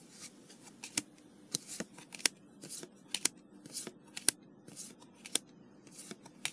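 Flesh and Blood trading cards being flicked and slid one at a time off a hand-held stack: an irregular run of short, sharp card snaps, about two a second.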